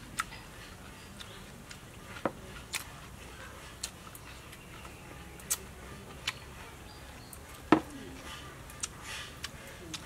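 Scattered sharp clicks and taps from hands picking apart deep-fried snakehead fish and handling small glass bowls of dipping sauce, about ten in all, with one louder knock just under eight seconds in.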